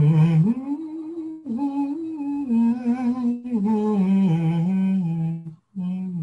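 A man's voice toning long wordless notes, stepping and gliding between pitches, with short breaks for breath about every two seconds. This is an improvised vocal 'voice portrait'.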